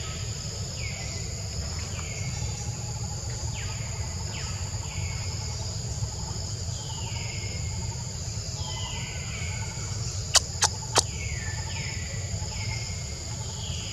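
Forest ambience: a steady high insect buzz, with a falling call repeated about once a second. Three sharp clicks come a little past the middle.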